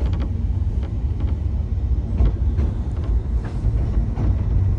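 Steady low rumble of a narrow-gauge railway carriage running along the track, heard from inside, with a few light clicks.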